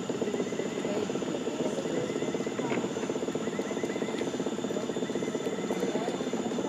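Boat motor idling: a steady, fast-pulsing low hum, with thin steady high tones above it.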